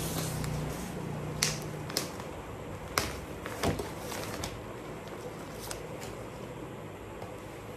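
Handling noise as a packaged suit is brought out and opened: a few short, sharp crinkles and clicks, the loudest about one and a half, two, three and three and a half seconds in, over a steady background hiss.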